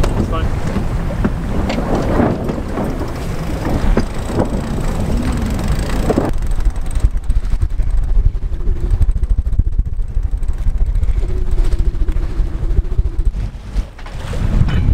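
Wind rumbling on the microphone and water rushing along the hull of a sailing ketch under way in a fresh breeze, with scattered knocks in the first few seconds. About six seconds in, the sound drops abruptly to mostly low wind rumble.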